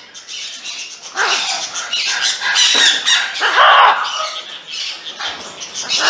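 Several parrots squawking in harsh, repeated screeches, loudest about three and a half seconds in, as they squabble over sugarcane.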